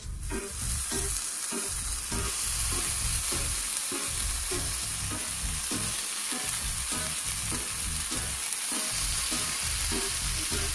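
Marinated meat and pepper kebabs sizzling in a hot ridged grill pan. The steady sizzle starts as the first skewer goes down and carries on as more skewers are laid in beside it, with a few soft knocks of handling.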